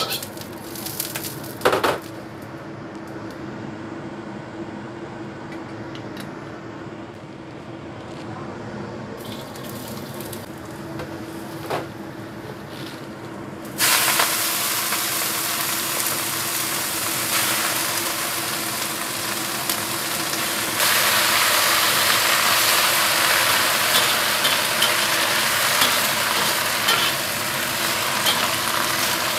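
Leafy greens stir-fried in a black iron wok on a gas burner. First the spatula scrapes and knocks a few times in the hot, oiled wok. About halfway through the greens drop into the oil and it breaks into a loud, steady sizzle, which grows louder again later as they are stirred.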